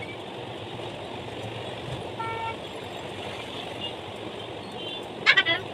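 Vehicle horn tooting: a short steady toot about two seconds in and a louder, wavering honk near the end, over the steady whoosh of a ceiling fan.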